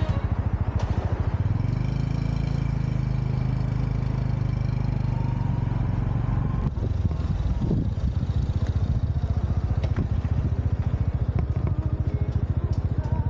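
Honda Super Cub's single-cylinder four-stroke engine running as the bike rides along, with a fast, even pulsing.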